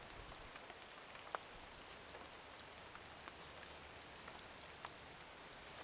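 Faint, steady rain falling, with a few single drops ticking now and then.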